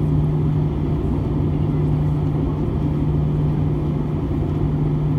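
Steady cabin drone of an Airbus A320 in flight on its descent to landing: engine and airflow noise heard from inside the cabin, with a constant low hum.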